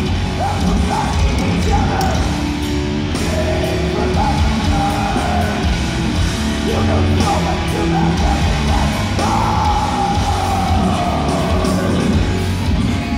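A death metal band playing live, heard from among the audience: distorted electric guitars, bass and pounding drums, with a harsh shouted vocal over the top.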